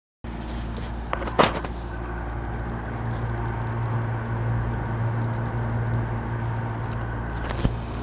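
Amana PTAC through-the-wall air conditioner running steadily, its blower giving a continuous airflow noise over a low electrical hum. A brief knock comes about a second and a half in.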